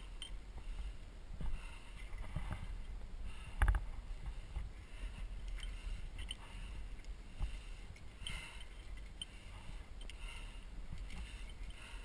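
Muffled scuffing and knocking of a climber moving over granite, heard through a GoPro's sealed housing over a steady low rumble, with one sharper knock about three and a half seconds in.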